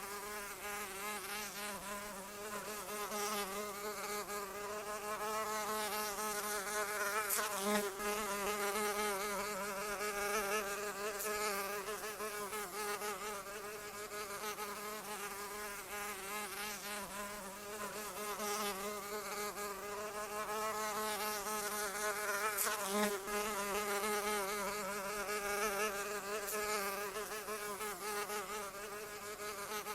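A flying insect's wings buzzing without a break, the pitch wavering slightly and the loudness swelling and fading as if the insect circles closer and further away. A couple of faint clicks are heard along the way.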